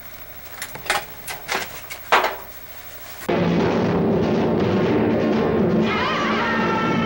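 A handful of sharp knocks and clacks from tools being worked at a bench. About three seconds in, loud music with drums cuts in suddenly and carries on, with a wavering pitched line near the end.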